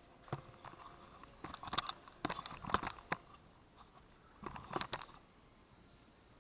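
Scattered sharp clicks and knocks in a few short clusters.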